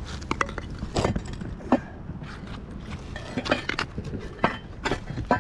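Scattered clinks and knocks of scrap metal pieces pulled up on a magnet-fishing magnet being handled, a few of them ringing briefly.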